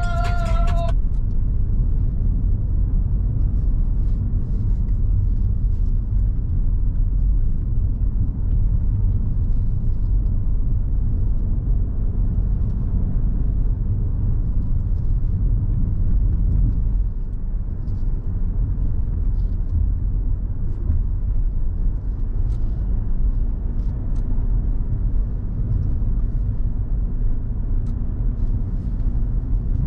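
Steady low wind and road rumble on a moving vehicle's camera microphone, with no distinct engine note.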